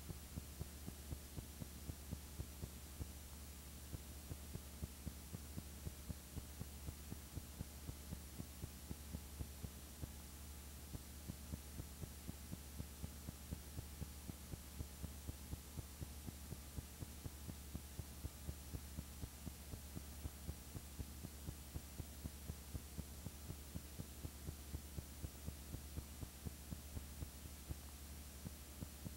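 Steady low electrical hum with faint regular ticks a few times a second, with no other sound.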